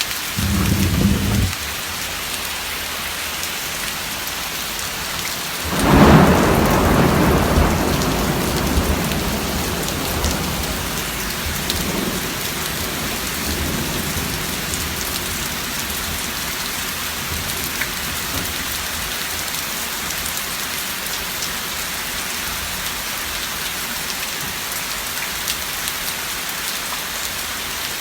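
Steady rain falling, with a roll of thunder about six seconds in that rumbles and slowly fades over several seconds.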